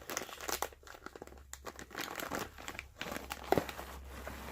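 Packaging crinkling and rustling as it is handled, with irregular crackles and a sharper click about three and a half seconds in.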